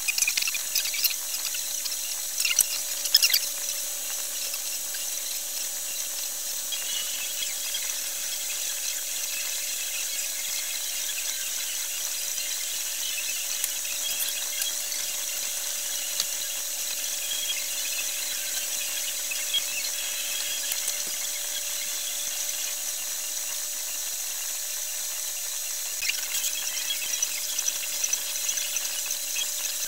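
Steady machine hum with a high hiss, with bursts of scraping in the first few seconds and again near the end.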